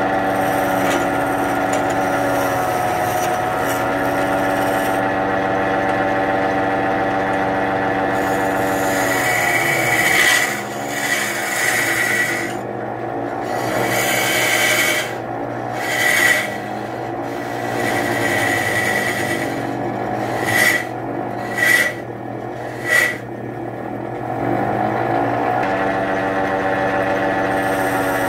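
Wood lathe running with a steady hum while a hand-held turning chisel cuts a large spinning wooden pestle blank, scraping against the wood. Between about ten and twenty-three seconds in, the cut gives a run of short, sharp scrapes.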